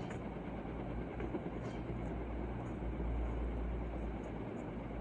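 Steady rumbling background noise, with a few faint high chirps.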